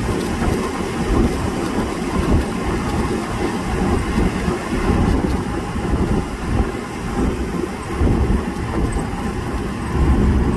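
A car driving along a road, heard from inside the cabin: a steady rumble of tyre and wind noise, growing heavier near the end.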